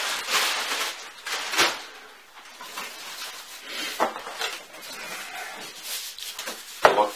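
Plastic bag rustling and crinkling as it is pulled off a packed unit of a speaker system, with a few knocks from the unit being handled on a wooden table. The loudest knock comes near the end.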